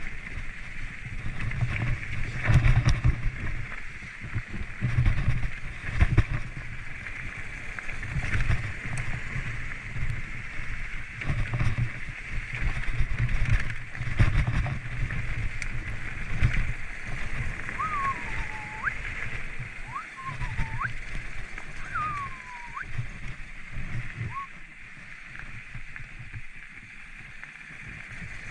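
Mountain bike riding a rough trail: wind buffeting the microphone in gusts, with knocks and rattles from the bike over bumps. About two-thirds of the way through come a few short whistles that slide down and then back up in pitch.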